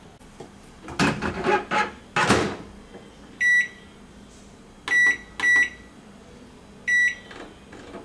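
Knocks and clatter as the rice dish goes back into the microwave oven and its door is shut, then four short high electronic beeps from the microwave's keypad as it is set for another 4 minutes and started.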